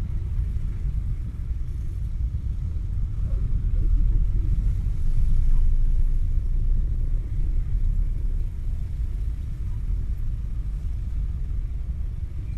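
Steady low rumble of many idling and creeping motorbike and car engines in dense, stop-and-go traffic, swelling a little about four seconds in.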